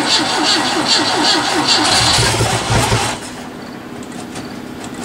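Inboard marine engine of a boat stored a long time turning over on its starter, in an even cranking rhythm of about five strokes a second, while carb cleaner is fed to the carburetor to help it fire. About two seconds in the cranking gives way to a deeper rumble for about a second, then stops about three seconds in.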